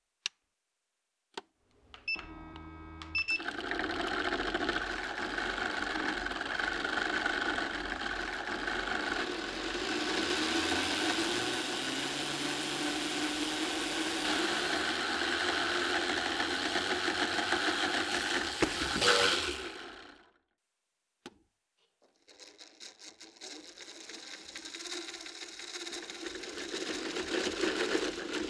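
A Lego Technic V8 engine model running, its plastic pistons and gears clattering steadily for about seventeen seconds before it stops suddenly. After a brief pause a Lego treadmill's motor-driven belt starts up and runs, growing louder.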